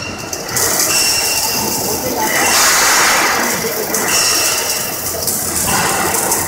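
Robotic arc welding on a Yaskawa welding robot: the steady hiss of the welding arc on a steel rotovator shaft, swelling louder about two and a half seconds in, then easing and rising again.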